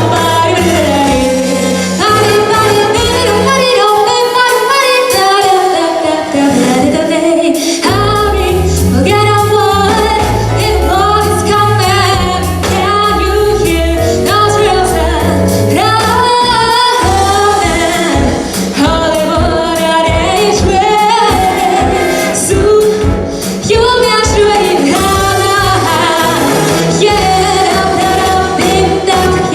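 A woman singing a swing jazz standard over a backing of stepping bass and drums.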